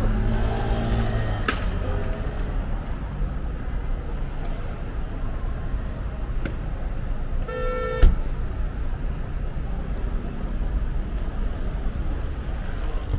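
Steady city street traffic noise with a short car horn toot about eight seconds in, ended by a sharp knock, the loudest sound here.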